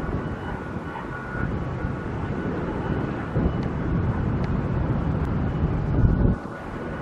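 Uneven low rumble of wind buffeting the microphone over a faint steady machine hum from the construction site. The rumble drops off suddenly about six seconds in.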